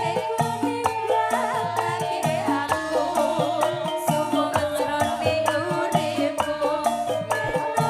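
Live campursari music: a Javanese band playing with frequent percussion strikes, a stepping bass line and a melody that wavers and slides in pitch.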